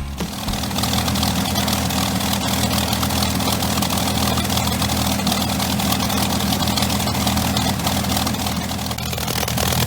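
Allison V-1710 V12 aero engine running at a steady speed, with an even stream of exhaust pulses.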